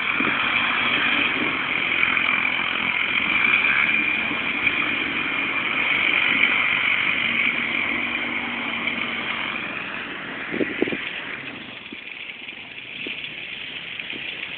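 Suzuki QuadRunner ATV engine running, then settling to a lower, quieter level near the end, with a couple of short knocks just before it drops.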